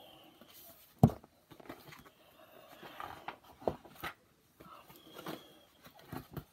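A paperback picture book being handled and its pages turned: scattered rustles and soft clicks, with one sharp knock about a second in.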